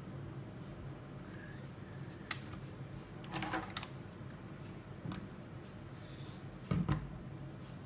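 A few small plastic clicks and rattles from a toy RC spray car being handled, then about six seconds in a faint steady high whine starts as its water-mist smoke unit begins spraying, followed shortly by a dull thump.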